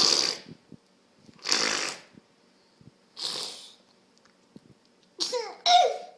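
Young child blowing raspberries: three short, noisy blows about a second and a half apart, then short high voice sounds near the end.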